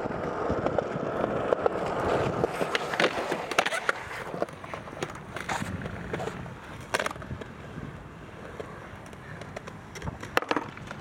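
Skateboard wheels rolling over pavement, louder for the first few seconds and then fading, with several sharp clacks of the board striking the ground.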